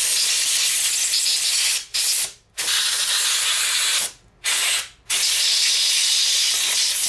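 Compressed-air blow gun blasting air through a 1980 Johnson 15 hp outboard's carburetor, blowing deposits out of its passages. The air goes in loud hissing blasts a second or two long, about four of them, with short breaks between.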